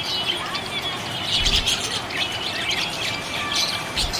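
Pet budgerigars chirping: a busy, continuous stream of short high chirps and brief whistled notes.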